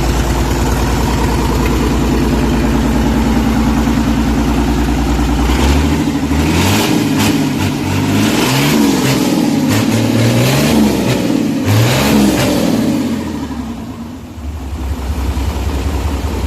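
Isuzu 6BG1 naturally aspirated inline-six diesel engine idling steadily, then revved about four times in quick succession, each rev rising and falling in pitch, before settling back to idle near the end.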